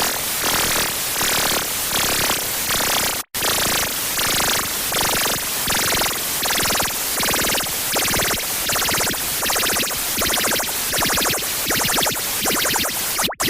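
Loud, heavily distorted electronic harsh noise: dense static across the whole range, pulsing about twice a second. It cuts out for an instant about three seconds in and again near the end.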